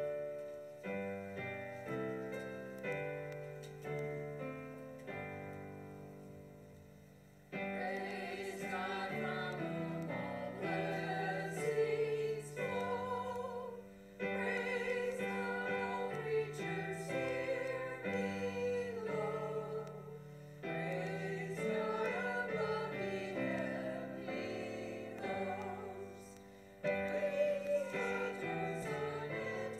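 Piano playing chords, joined about seven seconds in by singing with vibrato over the piano accompaniment.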